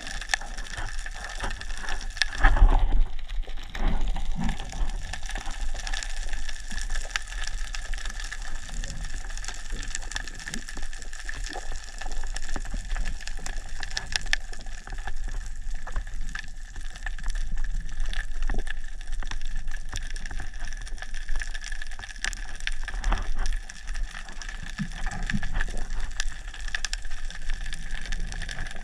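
Underwater sound picked up by a GoPro Hero 7 held on a pole during a freedive: a dense, steady crackle of small clicks over a constant high whine, with a louder rush of water about two and a half seconds in.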